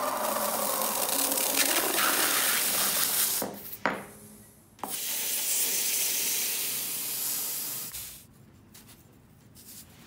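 Hot copper bar sizzling on a block of ice, the melting ice hissing into steam. The hiss comes in two long stretches, broken briefly by a short pause and a sharp click a little before halfway, and dies away near the end.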